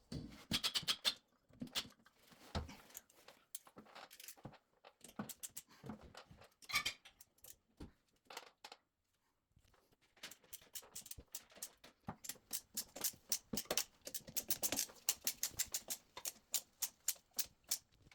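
Irregular clicks, taps and knocks of hand work with hardware. After a short quiet spell about halfway through, a fast, fairly regular run of sharp clicks follows, several a second, to the end.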